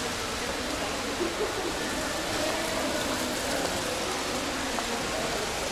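Small fountain jets splashing into a shallow indoor pool: a steady, even hiss of falling water.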